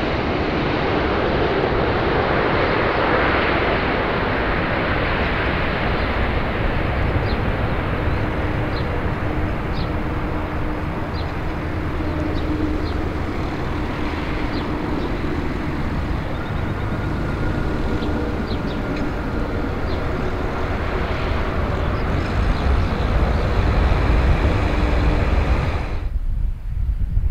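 Jet engines of a Boeing 787-10 airliner on final approach and landing, a steady broad rumble and hiss. A deeper rumble grows louder in the last few seconds, then cuts off abruptly.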